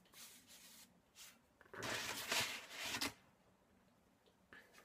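Hands rubbing and patting flour over a ball of dough on a floured marble board: soft dry brushing with a few light scuffs, loudest for about a second starting two seconds in.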